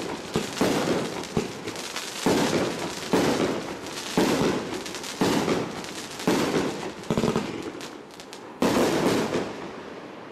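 A 35-shot, 30 mm calibre consumer fireworks cake firing its last shots: about eight bangs at roughly one-second intervals, each followed by dense crackling from the bursting stars. A final loud bang near the end trails off in fading crackle.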